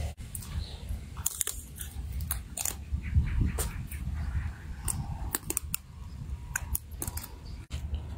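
A person chewing and biting food close to the microphone, with many short wet clicks and crunches, over a steady low rumble.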